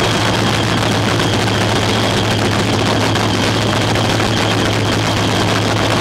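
Nostalgia funny car's nitro-burning V8 cackling at a loud, steady idle through open zoomie headers.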